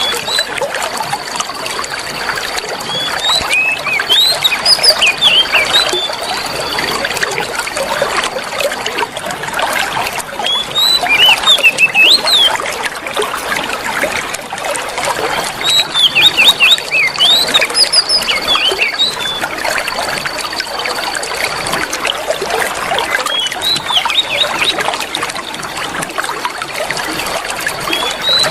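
Oriental magpie-robin (kacer) song: bursts of quick, rising and falling whistled notes every few seconds, over the steady trickling of running water. A high steady tone holds for a few seconds at a time between the phrases.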